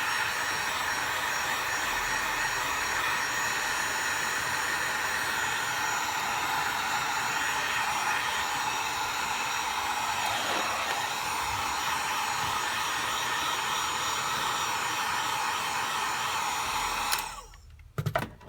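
Handheld hot-air blower running steadily, heating the phone's back glass to soften the adhesive underneath. It switches off with a click about 17 seconds in, leaving only a few faint handling clicks.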